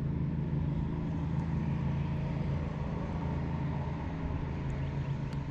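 A steady, unchanging low mechanical hum, like a distant engine or machinery running, with no sudden sounds.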